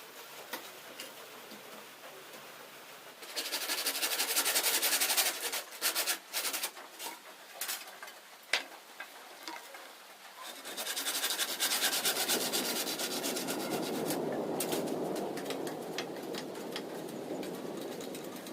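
Bamboo being worked by hand with a tool: two long spells of rapid rasping strokes, with scattered sharp clicks and taps between them.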